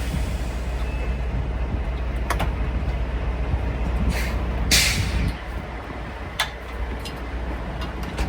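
Steady low rumble with scattered sharp clicks and knocks of a wiring harness being pulled through and handled on a truck reefer unit, and one short sharp hiss a little past halfway; the rumble eases just after the hiss.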